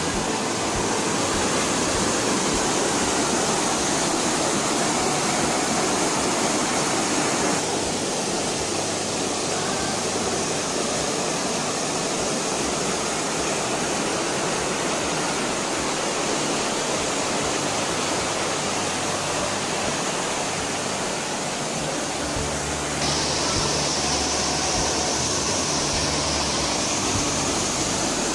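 Waterfall on a hill stream: water pouring with a loud, steady rush, its tone shifting slightly about 8 and 23 seconds in.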